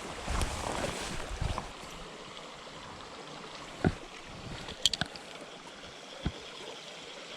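Small creek's water running with a steady rushing sound, with a few sharp clicks and knocks about four, five and six seconds in.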